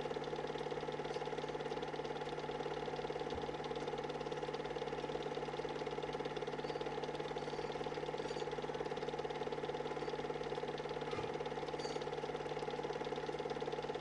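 Film projector running: a steady mechanical whirr with a fast, even clatter and a low hum.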